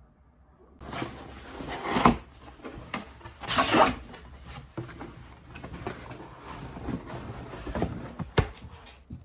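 Cardboard shipping box being opened by hand: flaps scraping and rustling, with a louder rasping rip about three and a half seconds in and sharp cardboard knocks near two seconds and again near the end.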